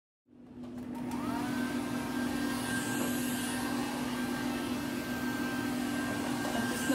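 Handheld electric hair dryer running with a steady whir, its pitch rising briefly as the motor comes up to speed about a second in.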